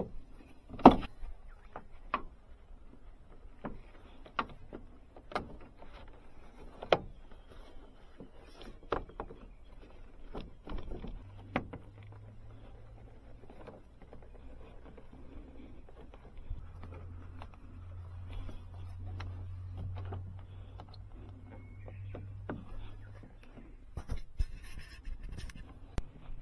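Scattered light knocks and clicks at irregular intervals, with a low steady hum that comes in around the middle and stops a few seconds before the end.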